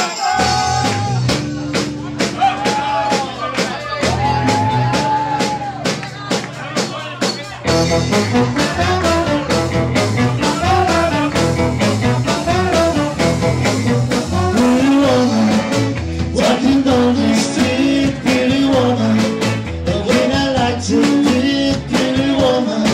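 Live band with electric guitars, bass, drums and trombone playing. It opens with long held notes over a sustained bass line, and the full band with drums comes in about eight seconds in.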